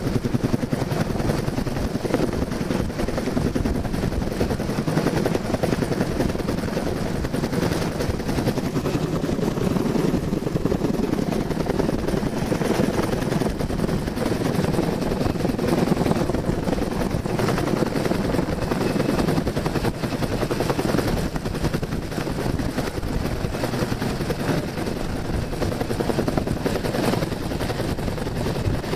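Helicopter hovering low overhead, its rotor chopping steadily.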